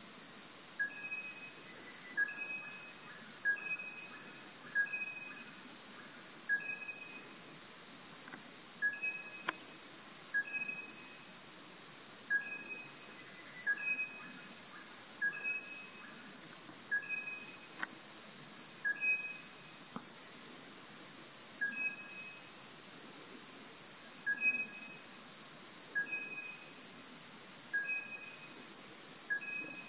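Forest insects droning steadily on one high pitch. Over it, a short two-note call repeats about once a second, and three brief, very high, thin calls come spread through.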